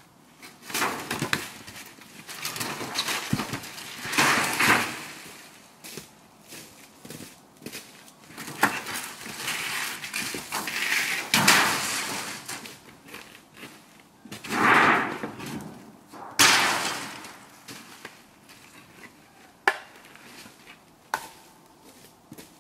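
Firewood being handled at a tarp-covered woodpile: an irregular clatter of split wood knocking together, with loud rustling swells a second or so long every few seconds and footsteps crunching on frozen leaves.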